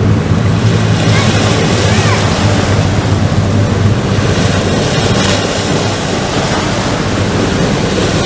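Rushing river rapids make a steady hiss. Over it runs the low drone of a jet boat's engine, which fades after about five seconds as the boat pulls away.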